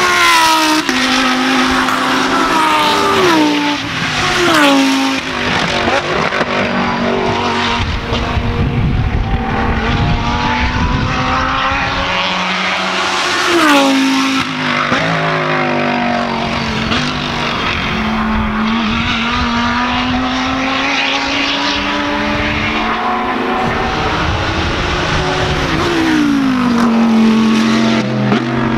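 Lamborghini Huracán GT3 race cars' V10 engines passing one after another. Their pitch drops in stepped downshifts as they brake for the chicane, near the start, about 3 s in, about 14 s in and near the end. In between the pitch rises again as they accelerate away.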